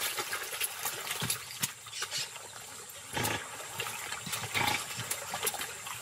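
Giant otters giving several short, irregular growls and snorts, with wet water and chewing sounds as they eat fish at the water's edge.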